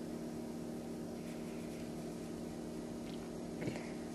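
Steady low background hum made of several fixed tones, with a single short click about three and a half seconds in.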